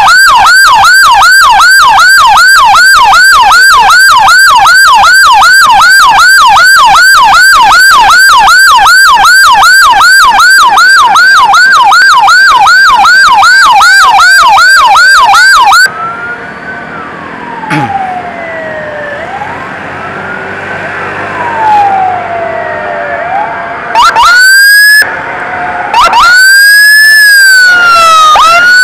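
Electronic emergency siren at close range in a fast yelp, about three sweeps a second, which cuts off about halfway through. A fainter siren then wails slowly up and down. Near the end the loud siren comes back in short rising and falling wails.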